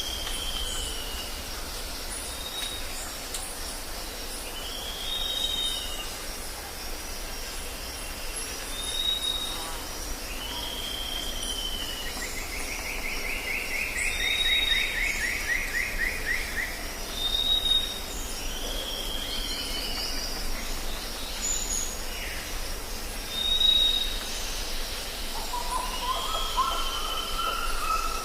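Jungle ambience: birds calling over a steady high insect drone. A short swooping whistle repeats every four seconds or so alongside brief higher notes, a long rapid trill comes in about the middle, and lower calls join near the end.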